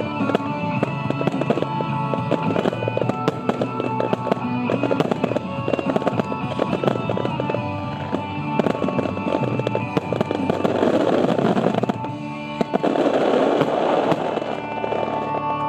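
Star mine fireworks going off in a rapid barrage of shell bursts, with music playing. Dense crackling fills two stretches, one about ten seconds in and one about thirteen seconds in.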